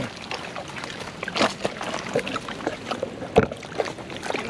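Water lapping and trickling against a rocky shoreline, with scattered rustles and knocks; the loudest is a sharp knock about three and a half seconds in.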